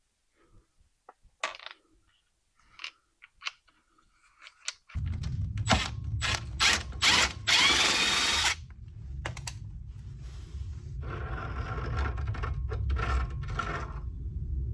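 Light clicks of tools being handled on metal, then about five seconds in a steady low hum starts and keeps going. Over it a power tool runs in short bursts, then in a longer stretch near the end, undoing suspension bolts on a car.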